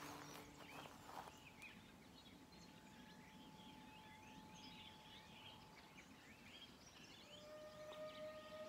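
Faint small birds chirping, many short scattered calls, over a quiet outdoor hush. A steady held tone comes in about seven seconds in.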